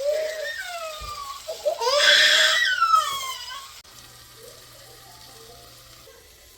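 A young child crying in long, high, falling wails, loudest about two seconds in, stopping about four seconds in.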